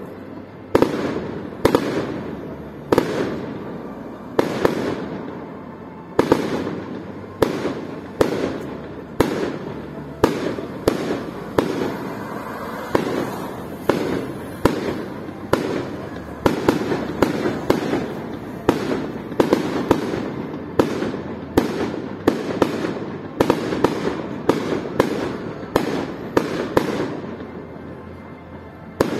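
Aerial fireworks display: shells bursting in a steady run of sharp bangs, each followed by an echo. The bangs come about once a second at first and faster, several a second, in the second half.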